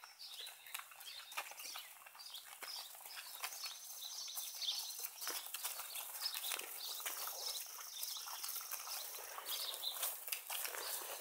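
Hooves of a small herd of cattle clopping on a paved farm lane as the animals walk past, the steps growing thicker about four seconds in. Birds chirp in the background.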